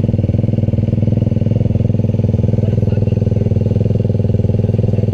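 Side-by-side UTV engine idling steadily at close range, an even run of firing pulses with no revving.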